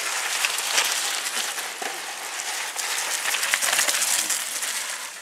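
Mountain bikes riding down a wet, muddy trail: tyres rolling and splashing through mud and water, with crackly clicking and rattling from the bikes. It swells twice as riders pass close by.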